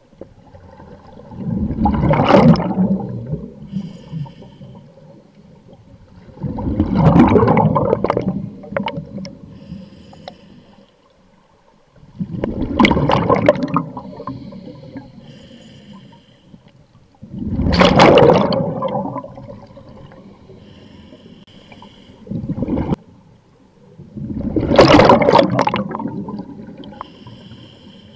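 Scuba diver breathing through a regulator underwater: five loud bursts of exhaled bubbles, one about every five to six seconds, with a faint hiss from the regulator on each breath in between.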